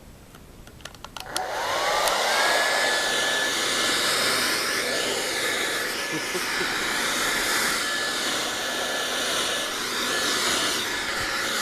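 Handheld blow dryer switched on a little over a second in after a few clicks: its motor whine rises quickly and settles at a steady pitch over the rush of air, then runs steadily.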